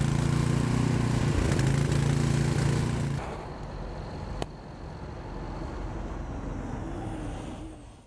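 Gas snowblower engine running steadily while throwing snow, for about three seconds. It cuts off abruptly to quieter street ambience: a low traffic rumble with one sharp click about four and a half seconds in.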